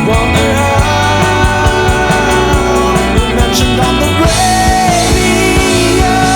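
Rock band music: guitars over steady bass notes and regular drum hits, with no clear vocals.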